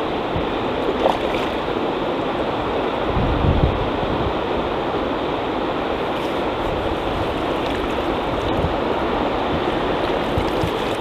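Steady rush of fast-flowing river water around a wading angler, with wind gusting on the microphone now and then.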